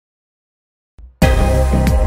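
Silence, then music starts abruptly a little over a second in.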